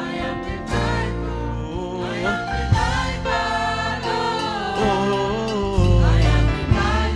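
Church choir singing a gospel worship song over band accompaniment, with sustained bass notes and occasional drum hits.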